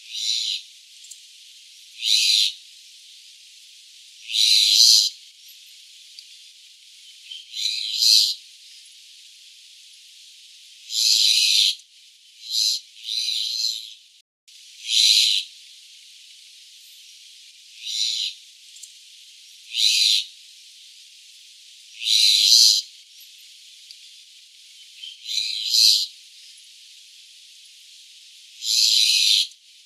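Jungle myna calling: short, high-pitched calls repeated every two to three seconds, some coming in quick pairs.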